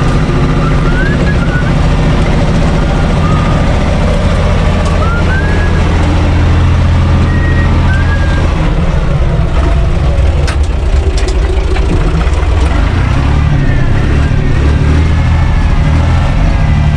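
Universal U445 DT tractor's four-cylinder diesel engine running steadily, heard from inside the cab.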